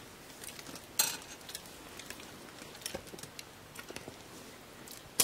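Quiet campfire cooking sounds: a faint crackle under scattered light clicks and knocks of a metal pan being handled over the fire grill. The sharpest clatter comes about a second in.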